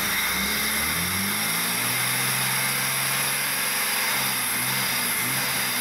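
Jeep Grand Cherokee's six-cylinder engine running, its pitch rising over the first couple of seconds as the revs come up, then holding steady and wavering a little near the end, over a steady high hiss.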